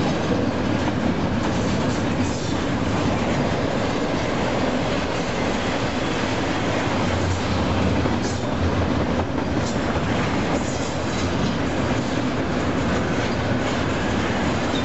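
Union Pacific double-stack intermodal well cars rolling past at speed: a steady rumble and clatter of steel wheels on the rails, with occasional clacks.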